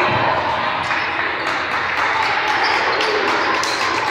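Basketballs bouncing on a gym floor, a string of irregular knocks, over a steady murmur of crowd voices.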